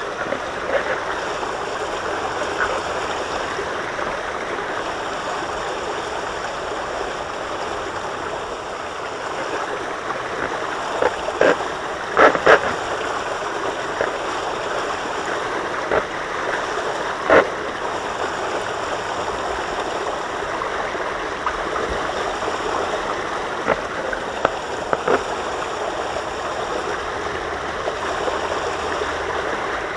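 Water rushing steadily along a water park slide, with a few short, sharp splashes or knocks, the loudest about twelve and seventeen seconds in.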